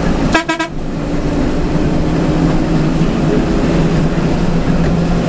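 Front-engined bus's diesel engine running steadily at cruising speed, heard from inside the cab. A brief horn toot sounds about half a second in.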